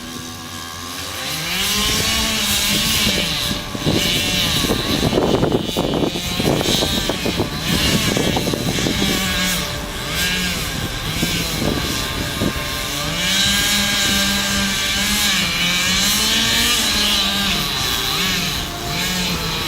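Chainsaw engine running and revving up and down again and again, with a rougher, noisier stretch from about four to nine seconds in.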